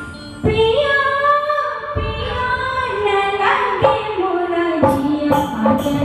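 A woman singing an old Bollywood film song into a microphone, holding long notes that slide between pitches. About five seconds in, the band comes in with a regular percussion beat under her voice.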